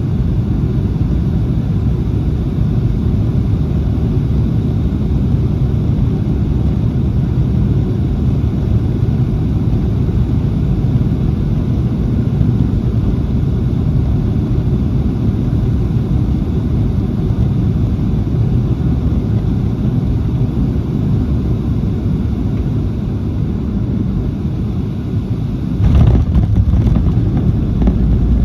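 Steady low rumble of a Boeing 737-700's CFM56 engines and airflow heard inside the cabin on approach. Near the end a sudden jolt and clatter, then a louder low rumble: the main gear touching down on the runway.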